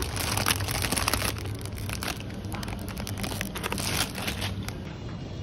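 Foil crisp bags (Lay's 3D's Bugles) crinkling as they are handled and dropped into a shopping basket, in two spells of crackling, with a steady low hum underneath.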